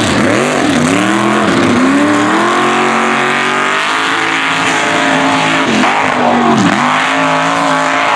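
Mega truck engine revving hard. The revs drop and climb back sharply several times, hold high and level for a couple of seconds in the middle, then dip twice more near the end.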